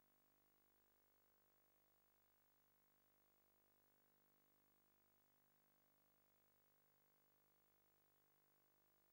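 Near silence: a blank stretch of soundtrack with only a faint, steady electrical hum and hiss.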